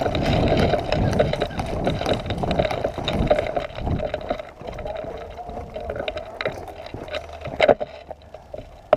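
Rustling and scraping of an airsoft player's gear and body as he tries to jump up, with a few sharp knocks, the loudest near the end.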